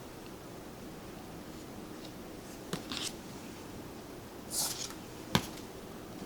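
Tarot cards being handled: two brief soft sliding swishes about three and four and a half seconds in, then one sharp tap a little after five seconds.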